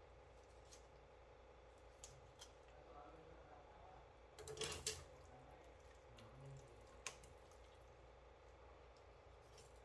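Quiet handling of raw chicken on a plastic cutting board: faint knife and hand clicks, a brief louder clatter about halfway through as a piece of chicken is dropped into a steel pot, and a single sharp click a couple of seconds later.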